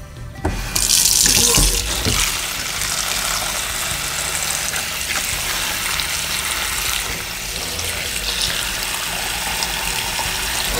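Water poured in a steady stream from a stainless steel kettle into an aluminium foil roasting pan, splashing among the vegetables to make a shallow layer of water for roasting. The pour starts about half a second in.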